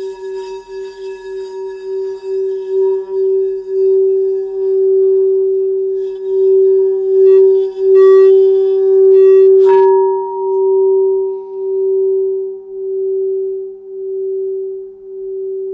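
Crystal singing bowl ringing with one steady low tone that pulses in a wavering beat, the beat slowing as the tone swells to its loudest about halfway through, then slowly fading. A short tap falls a little after the middle.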